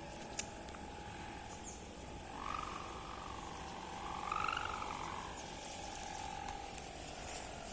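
Sendaren hummer on a flying Pegon kite droning in the wind: a steady wavering hum, with a higher wobbling tone swelling in and fading twice, about two seconds in and again around four seconds.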